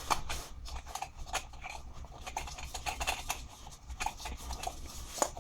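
A brass bulb holder and its collar being fitted into an Anglepoise lampshade: an irregular run of small clicks, taps and light scrapes of metal parts being handled, with one sharper click near the end.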